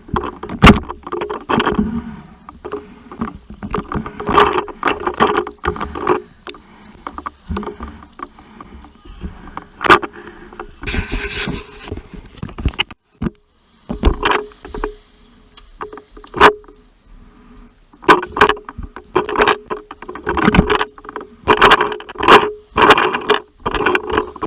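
Sea water splashing and sloshing in shallow surf, in irregular bursts with one longer rush of water partway through, over a faint steady hum.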